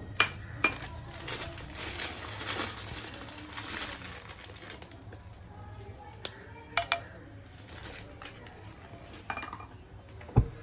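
Whole spices dropped into shallow oil in a nonstick pan: several sharp clicks as pieces such as cinnamon sticks land, over a stretch of soft rustling noise in the first few seconds. A low knock just before the end.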